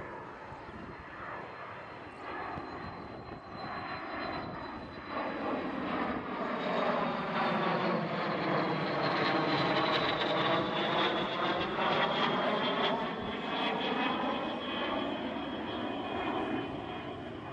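Aero L-39 Albatros jet trainer's turbofan passing overhead: a steady rush with a high whine, building to its loudest about two-thirds of the way through. The whine slides slowly down in pitch as the jet goes by, with a swirling, phasing sweep in the rush.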